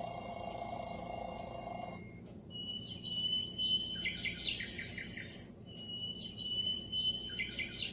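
Digital alarm clock playing its built-in alarm sounds through its small speaker: a steady ringtone-like chime that cuts off about two seconds in, then a recorded birdsong alarm. The birdsong is a held whistle followed by fast chirping trills, heard twice.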